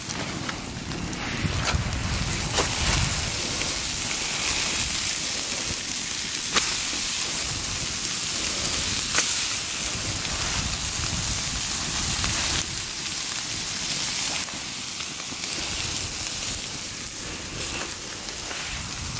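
Campfire burning: a steady hiss of flames and embers with a few sharp crackles and pops scattered through it.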